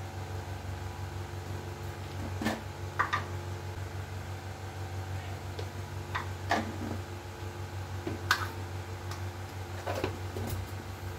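Steady low electrical hum, with a few light clicks and taps of a steel spoon against a steel bowl as spice powder is tipped into beaten eggs.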